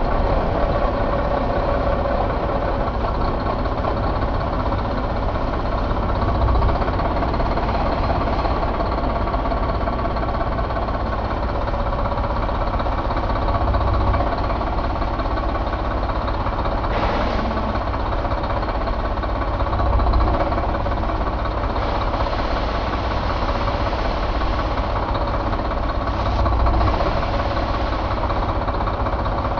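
2015 Mack MP7 inline-six diesel truck engine idling steadily, with a steady whine over the rumble and slight swells in level every six or seven seconds.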